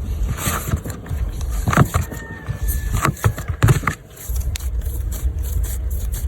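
Hands kneading flour dough for dumplings in a bowl, with a few knocks and scrapes, over a steady low rumble.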